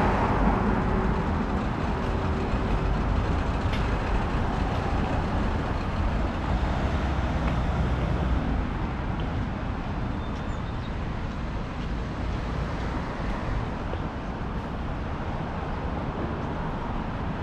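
City road traffic: a steady rush of vehicles going by, loudest at first and slowly easing off as a nearby vehicle moves away.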